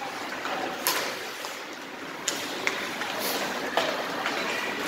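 Ice hockey play in a rink: skates scraping on the ice, with a few sharp clacks of sticks on the puck.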